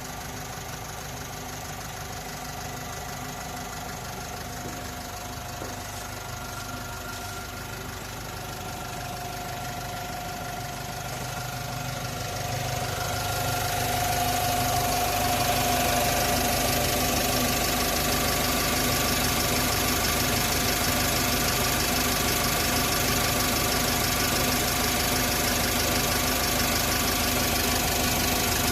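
2017 Isuzu 1.9 four-cylinder turbodiesel running with a steady howling whine over the engine note; about halfway through, the engine and whine grow louder and then hold. The howl is taken for the turbocharger.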